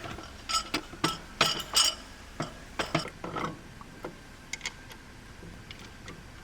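Metal tools and parts clinking and clicking as they are handled, several sharp ringing clinks in the first three and a half seconds, then a few fainter clicks.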